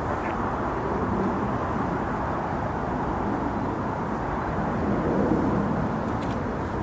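Steady rumble of an Airbus A380's four jet engines as the airliner touches down and rolls out along the runway, swelling slightly about five seconds in.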